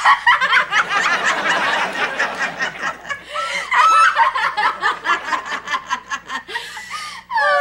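Two women laughing hard together, chuckling and giggling in long breathless runs. A falling musical tone starts right at the end.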